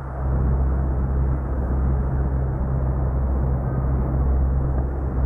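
Speedboat engine running steadily: a low, even hum with a rushing noise over it.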